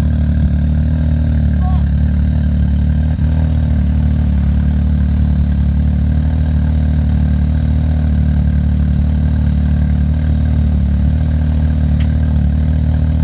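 Race UTV engine idling steadily, with no revving.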